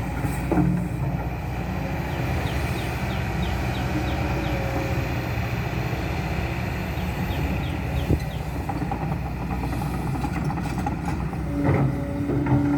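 Kobelco SK200-10 excavator's diesel engine running steadily, with a few louder knocks near the end.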